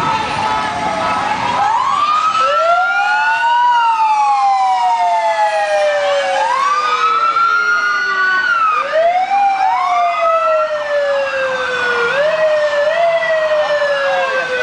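Emergency vehicle sirens wailing from a passing rescue ambulance, each sweep rising quickly and then falling slowly, a new sweep starting every three seconds or so with two or more overlapping.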